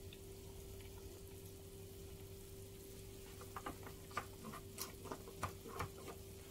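Faint steady hum. From about halfway there are scattered light plastic clicks and taps as the small food chopper's bowl and lid are handled after blending.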